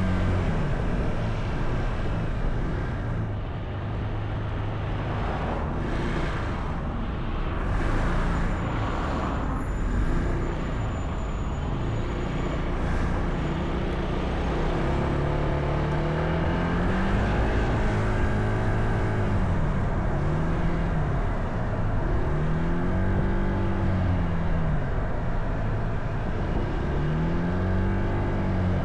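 Honda ADV160 scooter's single-cylinder engine running on the road, heard from a camera mounted on the scooter, over steady road and wind noise. In the first half other traffic goes by close. Later the engine pitch rises and falls again and again as the throttle is opened and closed.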